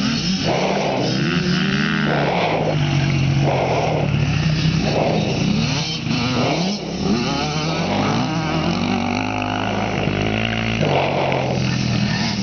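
Dirt bike engines revving, the pitch rising and falling again and again as the throttle is opened and closed.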